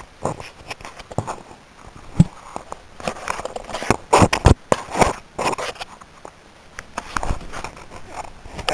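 Baby mouthing and grabbing a handheld camera right at its microphone: irregular knocks, rubbing and wet mouth noises, busiest about four to five seconds in.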